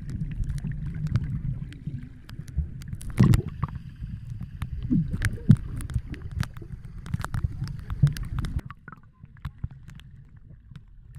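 Underwater recording of swimmers moving close to the microphone: a muffled low rumble of churning water and bubbles, with many sharp clicks. The rumble drops away near the end, leaving fainter clicks.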